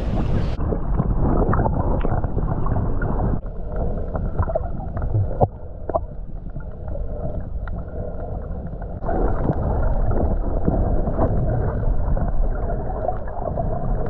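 Muffled water sloshing and gurgling heard through an underwater camera, with scattered small clicks.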